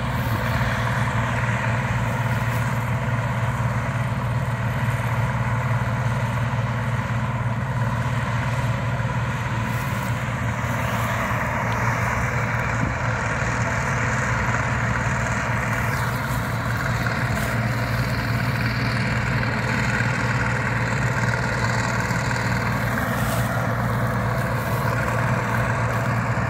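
Bizon Z040 combine harvester running steadily as it harvests, with a constant low tone under an even mechanical noise.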